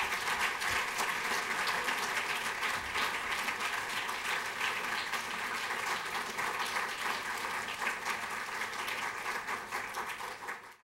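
Audience applauding steadily at the close of a lecture; the clapping cuts off suddenly near the end.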